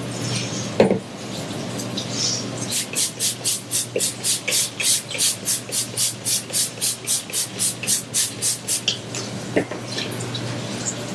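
A single knock about a second in, then a hand-held trigger spray bottle of Shout stain remover squirted rapidly over and over onto clothes, about four short hissing sprays a second for some six seconds, drenching the fabric.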